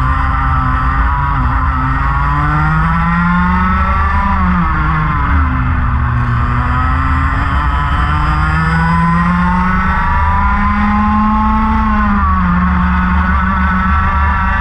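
Racing kart engines at race pace, close up, their note climbing along the straights and dropping twice as the karts slow for corners before rising again.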